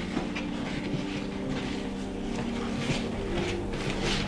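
Wooden spoons stirring stiff flour-based cookie dough in plastic mixing bowls, with soft irregular scrapes and knocks against the bowls. A steady low hum runs underneath.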